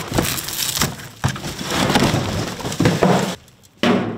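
Cardboard packing and plastic wrap crinkling and crushing as a soft-top frame is pulled out of its packaging, with many small crackles and knocks. Near the end it stops briefly, then a sharp knock.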